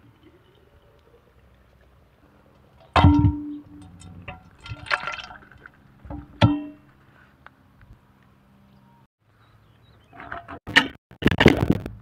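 Clay cooking pot knocking against a metal serving tray with two ringing clangs, with watery chicken stew pouring and sloshing out onto the tray between them. Near the end, a fork clinking and scraping on the tray.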